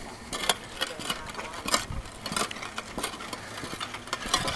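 Footsteps walking across a rooftop of concrete pavers, a crunchy step about every two-thirds of a second.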